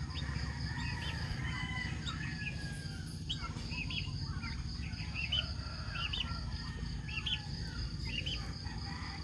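Birds chirping in short repeated calls, several to a second at times, over a steady high insect drone and a low steady rumble.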